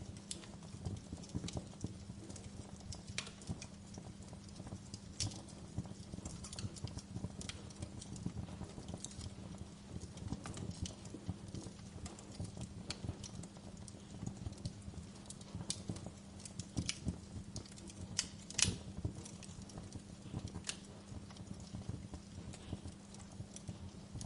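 Wood fire burning in a fireplace, crackling with irregular snaps and pops over a steady low rumble. One louder pop comes about three-quarters of the way through.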